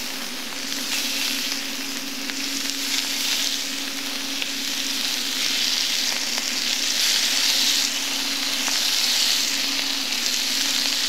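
Venison medallions searing in hot oil in a stainless steel frying pan: a steady sizzle, with a steady low hum underneath.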